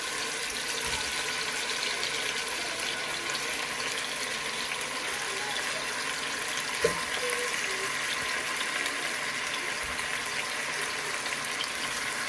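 Chicken legs sizzling in hot oil in a pot, a steady hiss, with one short knock about seven seconds in.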